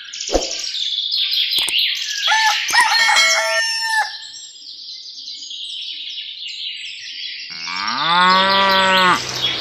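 Farmyard animal sounds: birds chirping busily with fowl calls mixed in for the first four seconds, then a cow mooing once for about a second and a half near the end.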